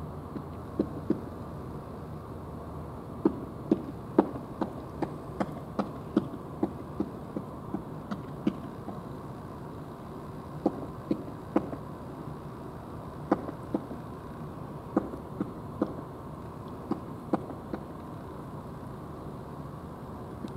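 Steady low background noise with many short, sharp clicks or knocks at irregular intervals, about one or two a second, coming in clusters with pauses between.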